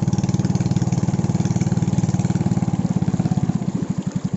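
Small boat's outboard motor running with a rapid, even beat, slowing down over the last second or so.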